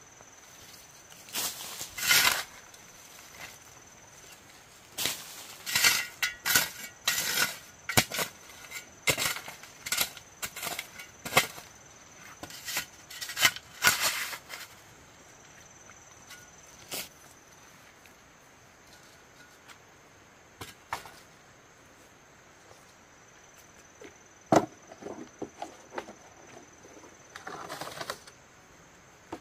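Irregular chopping strokes, a blade hacking into wood, in quick clusters through the first half and again near the end, over a faint steady high whine.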